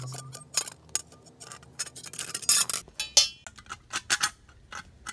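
Metal carburettor air filter housing being handled and fitted by hand: a string of light metallic clinks and knocks, with a short ringing scrape about three seconds in.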